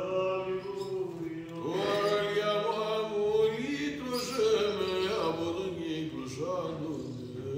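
Orthodox church chant: voices singing a slow melody of long held, gliding notes over a steady low drone.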